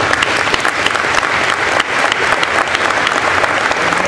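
Audience applauding: steady, dense clapping from the crowd after an award presentation.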